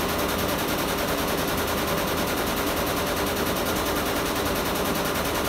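Six-head commercial embroidery machine stitching at speed: a fast, even clatter of needle strokes that starts suddenly and holds steady.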